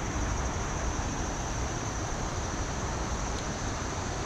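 Steady rush of river water flowing over a shallow riffle, with a steady high-pitched hum on top.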